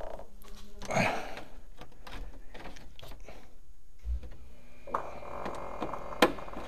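Chrome trim strip being handled and pressed against a car's painted steel deck lid: scattered light clicks, scrapes and rustles, with a louder rustle about a second in and a sharp click near the end.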